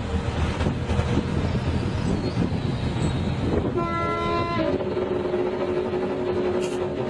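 A heavy machine's engine running with a dense low rumble. About four seconds in a brief horn-like tone sounds, then a steady hum.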